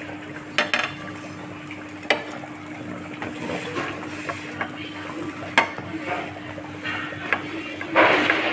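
Metal spatula clicking and scraping on a flat griddle (tawa) as buttered pav buns are pressed and turned, with a light sizzle of the butter beneath. A handful of sharp clicks, the longest and loudest scrape near the end, over a steady low hum.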